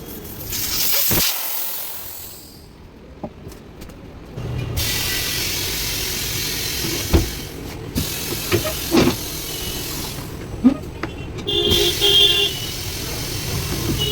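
Tyre-repair work on a motorcycle wheel: air hissing hard for about two seconds, then a steady low motor hum with sharp metal knocks and clanks over it, and a short tone near the end.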